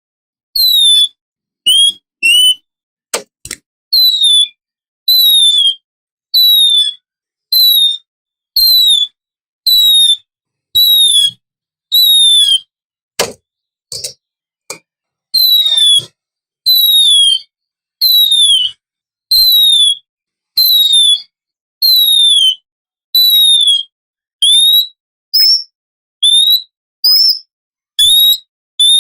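Oriental magpie-robin (kacer) singing a run of short, clear whistled notes, each sliding down in pitch, about one a second with brief pauses between. A few sharp clicks cut in, twice near the start and once about halfway.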